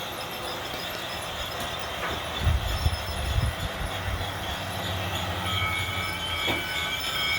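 Large battery-powered toy locomotive running on its track: a steady low motor hum and wheel rumble, louder for about a second near the middle. About halfway through a steady high-pitched squeal joins in.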